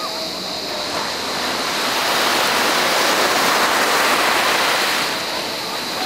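Small sea waves breaking and washing up onto a sandy beach, a steady rush of surf that swells through the middle and eases near the end.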